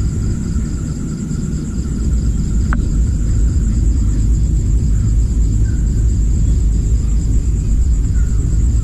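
A steady low rumble, with insects chirring in a pulsing high-pitched drone behind it and a single sharp click about three seconds in.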